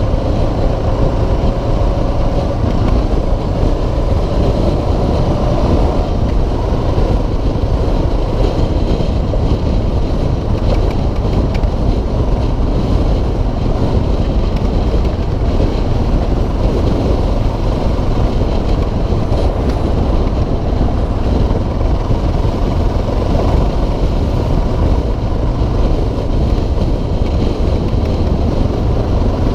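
Suzuki DR650SE's single-cylinder engine running at road speed under heavy, steady wind rush on the camera microphone. A faint tone rises slowly over the first six seconds.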